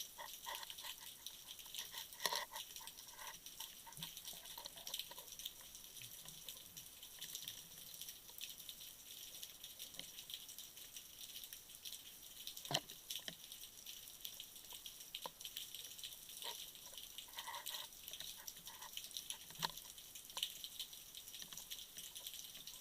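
Underwater ambience picked up by a dive camera: a steady fine crackling with many small clicks and a few sharper ones, and some brief gurgles.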